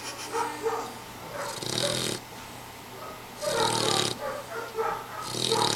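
A sleeping pet snoring, three snores about two seconds apart.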